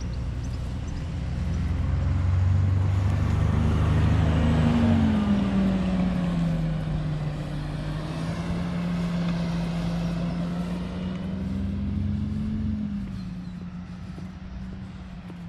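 Double-decker bus passing close by, its engine note dropping as it goes past, then a steady engine drone that fades as the bus pulls away.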